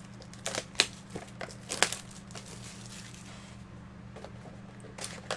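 Packaging crinkling and tearing in a few short bursts, mostly in the first two seconds and again near the end, as a fresh box of trading cards is opened.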